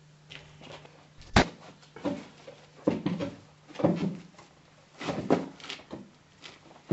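A single hard slam, like a door banging shut, about a second and a half in. Then come irregular rough sounds, about one a second, from the man tied to the chair as he stirs in his bonds.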